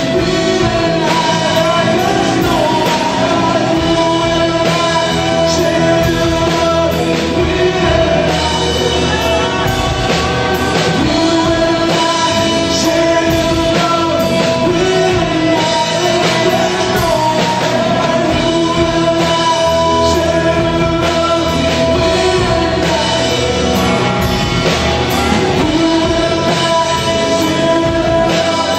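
Live worship band playing a rock-style song: electric and acoustic guitars and a drum kit with singers, loud and continuous.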